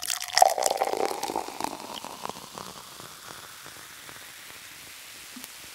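Crushed rock pouring out of a dump truck's tipped bed onto the ground: a dense rattle of stones loudest in the first two seconds, thinning to a steady hiss.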